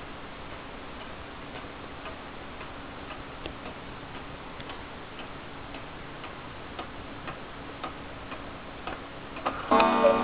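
Carved wooden cuckoo clock ticking with its pendulum, about two ticks a second. Near the end, a few clicks of the clock's striking train releasing come just before the door opens and the clock starts its cuckoo call, a loud pipe tone.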